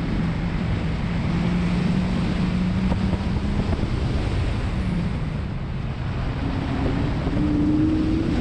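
Car engine pulling hard on an autocross course, with wind rushing over the car. The engine note holds fairly steady, then climbs in pitch over the last couple of seconds.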